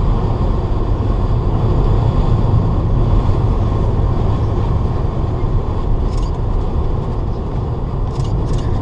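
Camper van driving along a road: a steady rumble of engine and road noise, heard from inside the cab.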